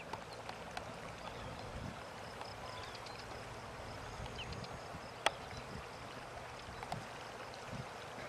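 Faint steady rushing hiss of open-air ambience, with scattered small clicks and one sharp click about five seconds in.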